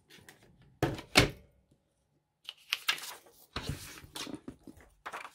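Two sharp knocks on a tabletop about a second in, the second louder, then a few seconds of papery scraping and rustling as an index card is cut down to size.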